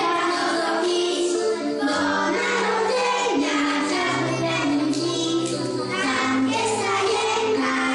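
A group of young children singing a Christmas song together over instrumental accompaniment with steady held bass notes.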